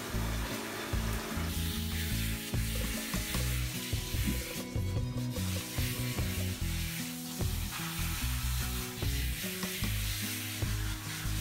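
Hand-held shower head spraying warm water onto a Chihuahua's back while a hand rubs its wet fur: a steady hiss that drops out briefly about five seconds in. Soft background music plays underneath.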